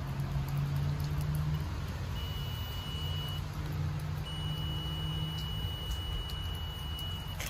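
Digital multimeter's continuity beeper sounding a steady high tone as its probes touch the ends of a spliced submersible well-pump cable: about a second of tone, then a longer tone of about three seconds. The beep means the circuit is continuous and the splice is good. A steady low hum runs underneath.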